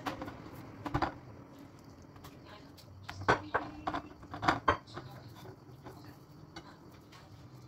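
Kitchenware clinking: a few sharp knocks of dishes or cutlery, one about a second in and a quick cluster about three to five seconds in, over a low steady room background.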